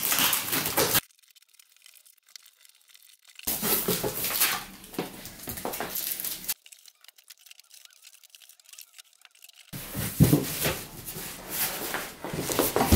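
Packing tape being ripped off a cardboard box and the cardboard being pulled open and handled. There are three bursts of tearing, scraping noise with near-silent gaps between them.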